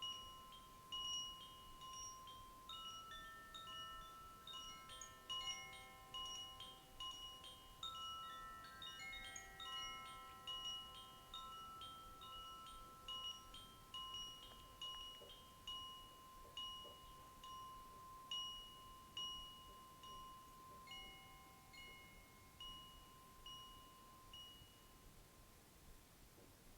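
Koshi wind chime being gently moved, its tuned rods ringing softly in overlapping notes of several pitches; the ringing dies away near the end.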